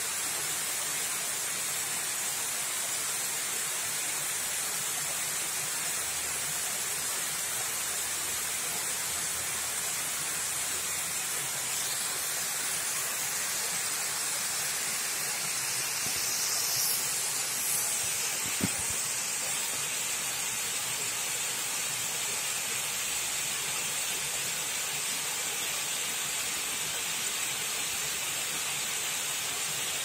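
Waterfall: water falling and splashing in a steady, hissing rush, with a brief swell about two-thirds of the way in.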